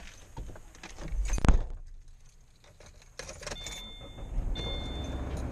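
Car keys jangling in the hand, then a single loud thump about a second and a half in. Near the end the key is turned in the ignition: the car's ventilation fan starts blowing and a high warning chime beeps over and over, about once a second.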